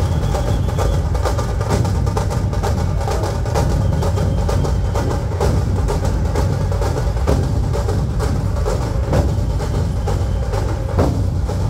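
Dhol-tasha ensemble drumming: massed dhol barrel drums and tasha drums playing a loud, dense, continuous rhythm.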